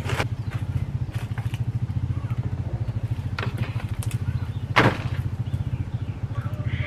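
Solar-powered fan running, a steady low hum that pulses rapidly, with a sharp click just after the start and another about five seconds in.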